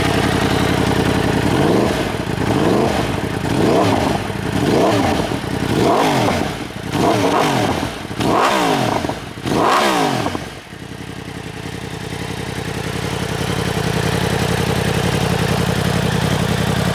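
2023 Yamaha R1's crossplane inline-four through a three-quarter Akrapovič exhaust, idling, then revved in about eight quick throttle blips, each climbing and falling back. It dips briefly after the last blip and settles back to a steady idle.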